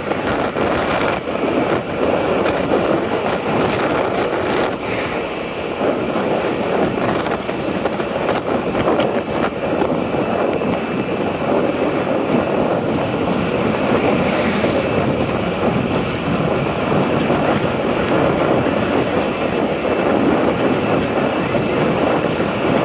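Steady rush of wind and engine noise from riding a motorbike along an open road.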